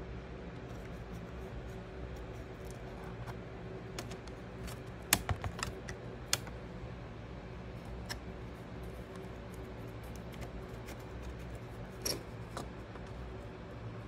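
Scattered small clicks and taps of a laptop's CPU heatsink being unscrewed, handled and lifted out: metal screws, heatsink plate and plastic parts. Sharper clicks come in a cluster about five to six seconds in and again near twelve seconds, over a steady low hum.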